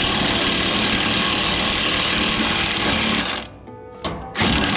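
Cordless impact driver hammering at the bolts of a John Deere 1219 mower conditioner's sickle bar. It runs for about three and a half seconds, stops, then gives two short bursts near the end.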